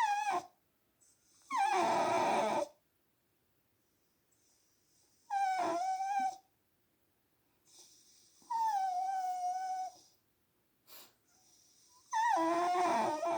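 A Blue Heeler–Corgi mix dog whining in four long drawn-out cries a few seconds apart, each sagging slightly in pitch, in reaction to a person snoring.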